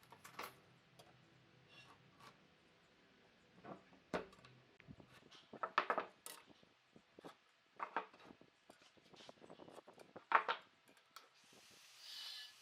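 Pieces of wood being handled: irregular light clicks and knocks, with a few sharper knocks spaced a couple of seconds apart. A soft hiss comes in near the end.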